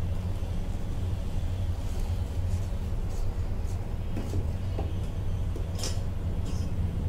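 Faint scraping and clicking of a wooden spatula and a spoon stirring milk and grated bottle gourd in a steel kadai, with a sharper clink of the spoon near the end, over a steady low hum.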